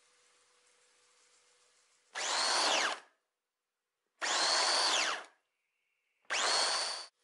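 Electric food processor pulsed three times, its motor spinning up with a rising whine and running about a second each time as it chops onion and garlic into a soy sauce marinade.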